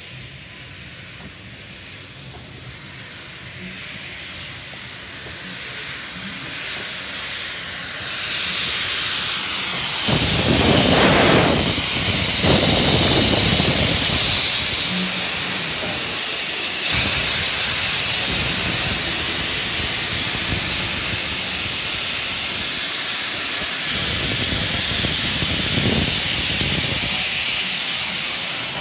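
Steam locomotive K163, a Victorian Railways K-class 2-8-0, moving slowly past at close range with steam hissing from its open cylinder drain cocks. The hiss builds as it approaches, is loudest from about ten to seventeen seconds in, then holds steady.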